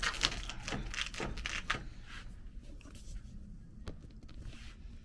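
Household handling noises: a quick run of rustling and knocking scrapes in the first two seconds, then quieter, with one sharp click about four seconds in.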